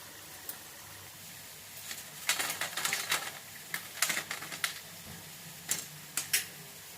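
Light metal clinks and scrapes of a spoon against a frying pan, coming in irregular clusters of short taps, as fried cauliflower balls are lifted out of the oil.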